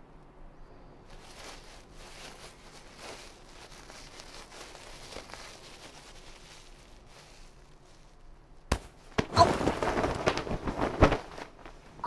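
A sudden crash: one sharp crack, then about two seconds of loud clattering and crackling near the end, after faint rustling.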